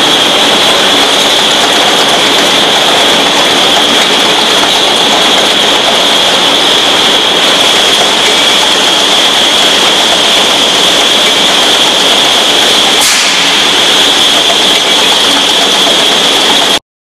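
Pilfer-proof cap making machine running with a loud, steady mechanical noise and a high steady whine, one short click about 13 seconds in; the sound cuts off suddenly near the end.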